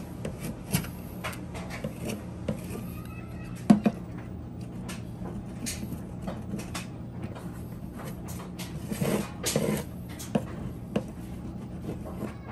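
A plastic trim-removal tool scraping and clicking against the painted liftgate as leftover emblem adhesive is worked off in short strokes. A sharp knock comes about four seconds in, and a louder spell of scraping a little after halfway, over a steady low hum.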